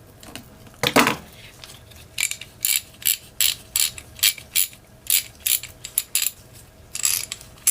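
Craftsman 44809 1/2-inch-drive ratchet being worked back and forth in a test after reassembly, its pawl clicking over the gear teeth about three times a second. The ratchet has just been cleaned of sheared-off pawl-tooth fragments that had jammed it.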